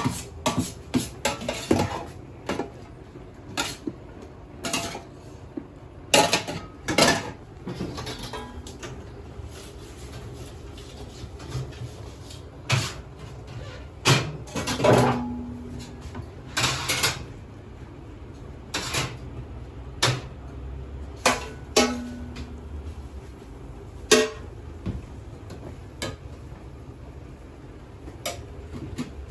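Irregular clatter and knocks of dishes, utensils and kitchen fittings in a fast-food kitchen, over a low steady background.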